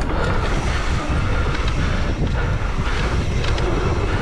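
Wind buffeting the ride camera's microphone with rumbling trail noise as an electric mountain bike is ridden hard down a dirt flow trail.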